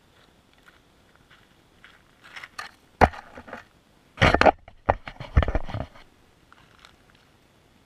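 Loose gravel crunching and scraping close to the microphone as the camera resting on the rocks is shifted, with a sharp knock about three seconds in and the loudest crunching in the two seconds after it.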